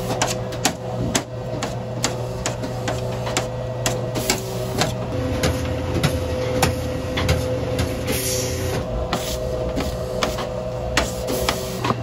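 Hand food preparation in a breakfast-shop kitchen: a stream of irregular wooden and metal knocks and clacks, several a second, over a steady equipment hum, with a brief hiss about eight seconds in.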